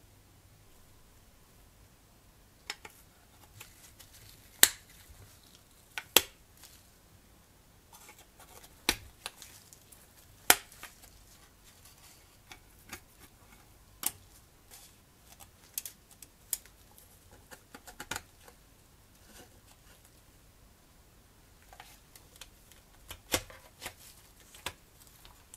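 Scattered sharp clicks and taps of small plastic model parts and metal hand tools as a scale-model car interior is fitted together, some fifteen to twenty of them at uneven intervals, the loudest a few seconds in and again about ten seconds in.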